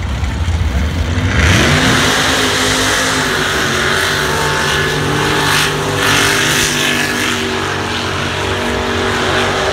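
Two lifted off-road trucks' engines rumbling at the start line, then about a second in going to full throttle with rising revs and staying wide open as the trucks launch side by side up a snowy hill climb.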